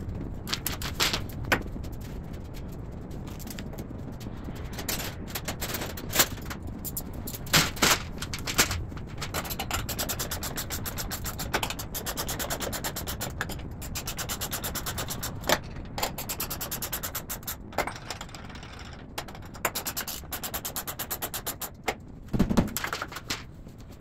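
Cordless impact driver hammering in bursts of rapid rattling while driving fasteners to mount steel rack-arm brackets on a wooden post, with sharp metal knocks between the bursts.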